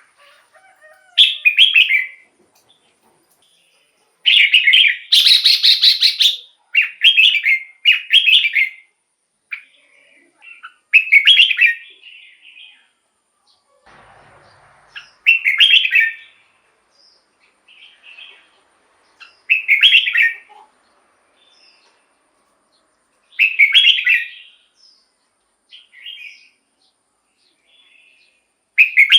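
Red-whiskered bulbul singing short, loud whistled phrases. The phrases are repeated every few seconds with silent gaps between them, and one longer run of phrases comes about four seconds in.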